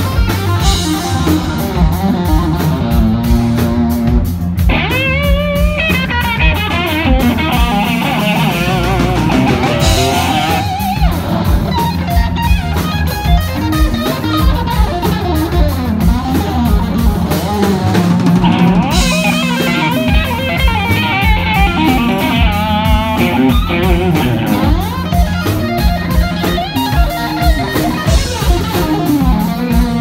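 Live rock band jamming: electric guitar leads with bent, wavering notes over bass guitar and a drum kit keeping a steady beat.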